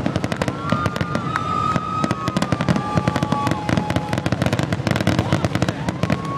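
Fireworks going off in rapid succession: dense bangs and crackling with no break. A long whistling tone, sliding slightly down in pitch, begins about half a second in and fades after about three seconds.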